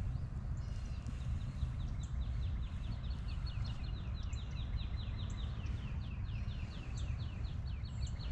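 A bird singing a long rapid trill of short high notes, about five or six a second, starting about a second in, with a few higher chirps above it, over a steady low rumble.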